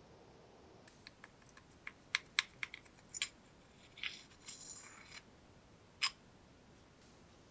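Metal parts of an old rusty monkey wrench clicking and scraping as they are handled: a quick run of light clicks, a short scrape about four seconds in, and one sharper click near six seconds.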